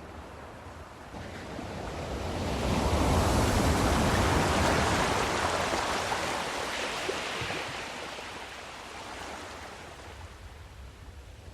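Ocean surf: a wave swells over a couple of seconds, breaks and washes, then fades back to a steady wash of water.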